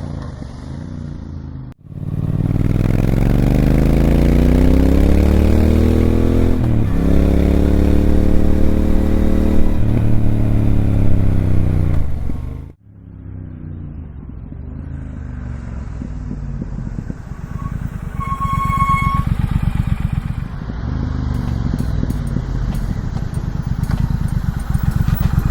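2019 Triumph Speed Twin 1200's parallel-twin engine through its stock twin mufflers, recorded on the bike. It accelerates hard, rising in pitch through several gear changes, then runs at low revs with an even, lumpy beat. A deep exhaust note. There is a short beep about eighteen seconds in.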